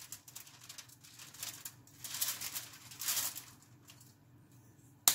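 Hand rubbing seasoning into a whole red snapper lying on aluminium foil: several short crinkling rustles of the foil and fish skin, with a sharp click near the end.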